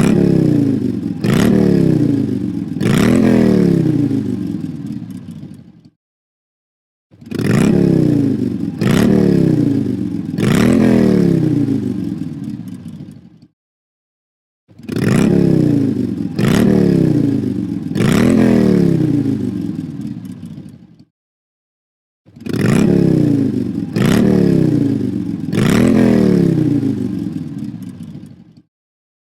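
A phone alarm ringtone playing on a loop. Each phrase is three swooping notes that rise sharply and then fall in pitch and fade, and it repeats about every seven and a half seconds after a second of silence.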